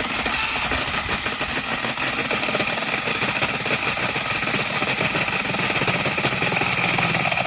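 Makita brushless electric power head with its chainsaw attachment cutting through a thick dead hardwood log, the motor running steadily under load.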